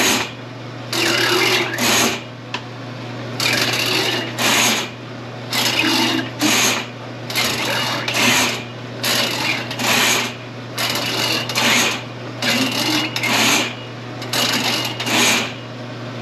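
Milwaukee M18 sectional drain machine with 7/8-inch cable running in a main line: the motor hums steadily under a rhythmic clatter that comes in pairs about every one and a half to two seconds as the spinning cable works against the clog.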